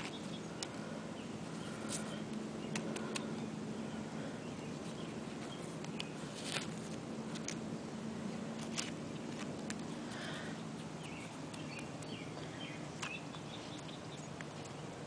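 Steady outdoor background noise with a low hum, broken by scattered light clicks of shells and gravel being picked up and handled, and a few faint bird chirps.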